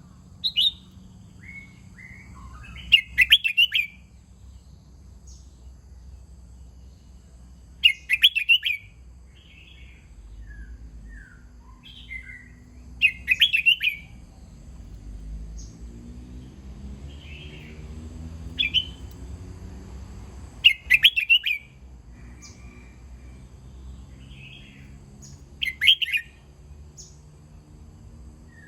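Red-whiskered bulbul singing short, clear, warbled phrases about every five seconds, with softer chirps in between.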